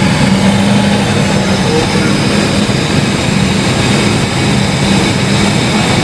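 1980 Mercedes 450SL's 4.5-litre V8 idling steadily. Its fuel-injection control pressure is reading about 80 psi, roughly twice the 40 psi spec, because the warm-up regulator isn't working properly.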